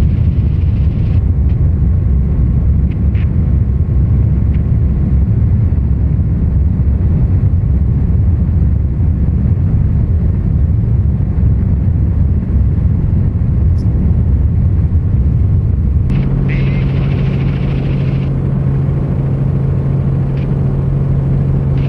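Cabin noise of a light training helicopter in flight: a loud, steady engine and rotor rumble. About sixteen seconds in the rumble thins and a steady low hum comes to the fore.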